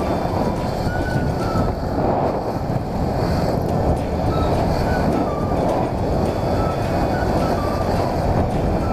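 Wind rushing over the microphone of a riding Honda scooter, over the steady low rumble of its engine and tyres on the road.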